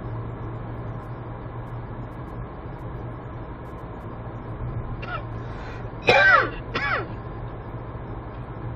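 Inside a car at about 65 km/h, the engine and road noise make a steady low hum. About six seconds in, a person in the car clears their throat twice in quick succession, short and loud.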